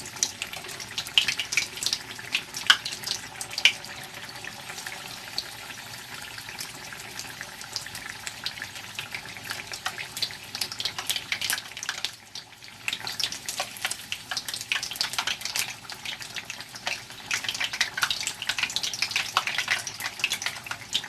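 Battered chicken pieces deep-frying in hot oil: a steady sizzle full of small pops and crackles, easing for a moment about twelve seconds in and then picking up again.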